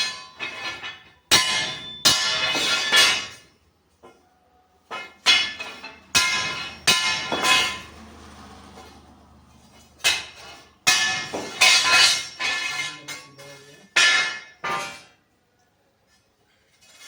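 A steel hammer striking steel angle iron about fifteen times in uneven groups, each blow ringing out: the angle is being hammered straight.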